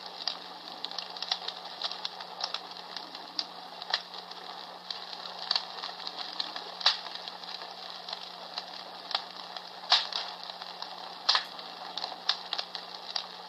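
Comfort Smart Fire Crackler, a palm-sized battery-operated sound machine, playing a recorded crackling-fire sound through its small speaker: irregular snaps and pops over a steady hiss.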